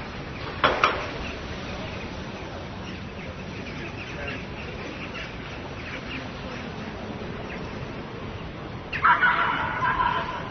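Small-town street ambience: a steady background hum with birds chirping, a sharp double knock just under a second in, and a louder fowl-like bird call near the end.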